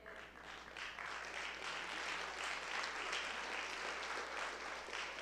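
Congregation applauding, the clapping building over the first second or two and easing off near the end.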